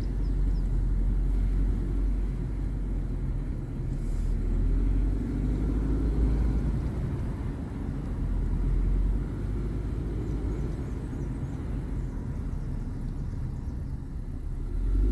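Vehicle driving along, heard from inside: a steady low rumble of engine and tyre road noise that swells and eases slightly.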